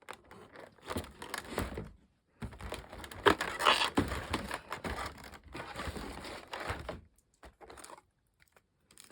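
Packaging crinkling and rustling as it is handled by hand, in two stretches with the second one longer, then a few light clicks.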